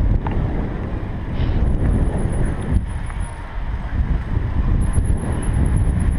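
Wind buffeting a bike-mounted camera's microphone, mixed with the rumble of mountain-bike tyres rolling over cobblestones.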